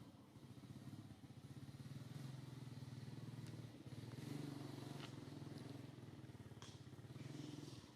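Faint, steady low hum of an engine running, with a rapid pulsing rumble, and a few light clicks over it.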